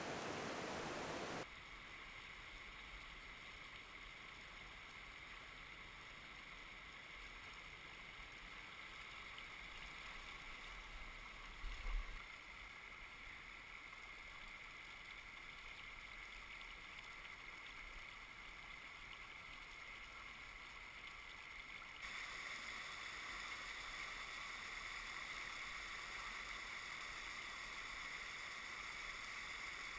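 Faint, steady rushing of flowing creek water. It steps down in level shortly after the start and up again about two-thirds of the way through, with one brief low thump a little before the middle.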